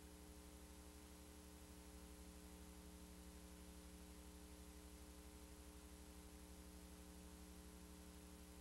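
Near silence: a faint steady electrical hum with a low fast buzz and light hiss.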